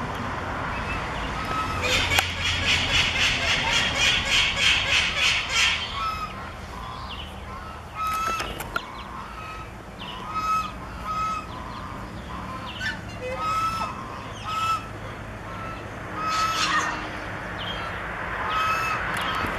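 Waterfowl calling: a fast, even run of loud calls, about three a second, lasting about four seconds, then scattered short calls.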